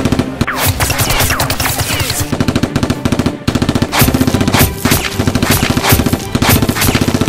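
Rapid automatic gunfire in long bursts of many shots a second, with a brief break about three and a half seconds in.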